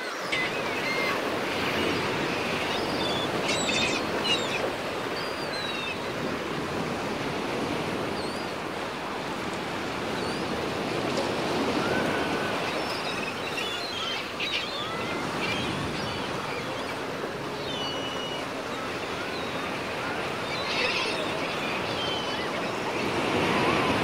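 Small sea waves breaking and washing over a pebble beach in a steady surf wash, with a few brief faint high calls in the background.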